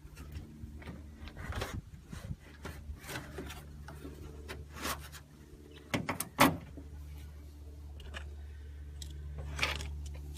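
Plastic push-pin clips being pressed in to refasten a car's hood underliner: a series of short clicks and knocks, the loudest a sharp knock about six seconds in, over a steady low hum.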